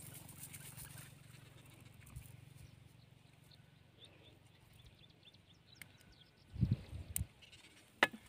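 Handling noise from a nylon cast net being worked by hand as a small fish is picked from the mesh: faint rustles and ticks, then a few low thumps and two sharp clicks near the end. A low steady rumble fades out over the first few seconds.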